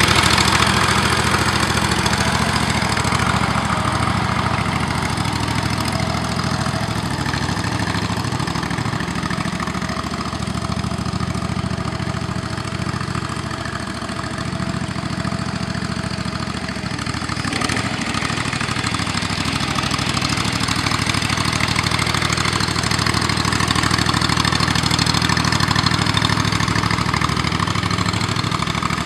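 25-horsepower Briggs & Stratton engine of a single-axle tractor running steadily, driving its hydraulic pump while the machine drives the hitched trailer around.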